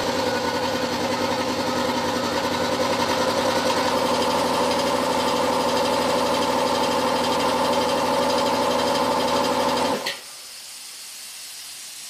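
An old 3-horsepower belt-driven workshop air compressor, electric motor and pump, running noisily and chugging as it pumps up its tank. It struggles to build pressure, which the owner puts down to age and failing motor capacitors. About ten seconds in it cuts out sharply with a click at only about 60–65 psi, followed by a quieter hiss of air.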